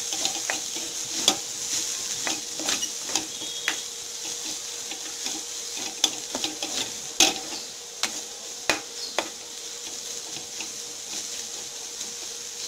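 Chopped vegetables sizzling in oil in a nonstick pan while a plastic spatula stirs them, with a steady hiss and irregular scrapes and knocks of the spatula against the pan.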